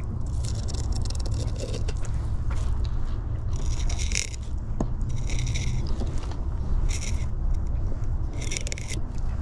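A knife scraping and slicing along a trout's backbone during filleting, in about five separate strokes of a fraction of a second to over a second each, over a steady low rumble.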